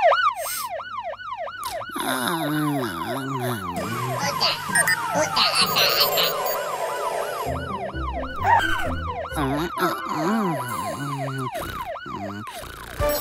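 Cartoon fire engine siren wailing in quick, repeated rise-and-fall sweeps, about three a second. Lower sliding tones come in twice, a couple of seconds in and again near the ten-second mark.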